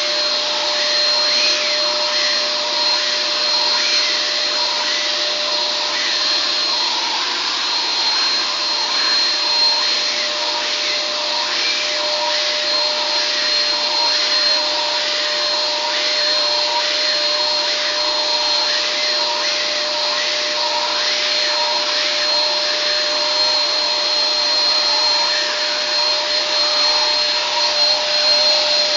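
Vacuum cleaner running steadily, with a constant high whine over its noise.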